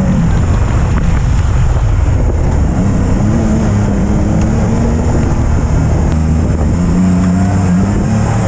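Can-Am Maverick side-by-side's turbocharged three-cylinder engine running under way, heard from inside the open cab. Its pitch wavers up and down as the throttle changes.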